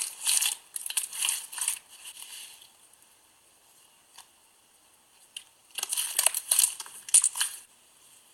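Clear slime being squeezed and mixed with small charms by hand, giving crackly, crinkling squishes in two bursts: one over the first couple of seconds and another about six seconds in, with a few single clicks between.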